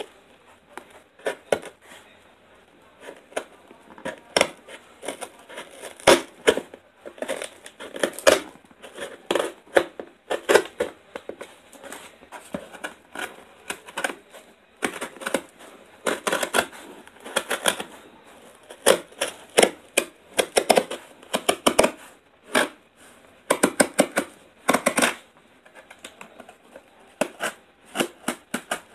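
Scissor blades scraping and cutting along the packing tape of a cardboard shipping box, in irregular runs of quick, sharp scratchy clicks.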